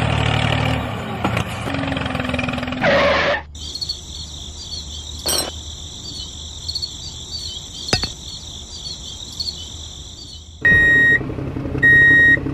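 Steady high chirring of crickets or other insects, in quick repeated chirps, with a few clicks. A loud low engine-like running sound comes before it, and comes back near the end with two short beeps.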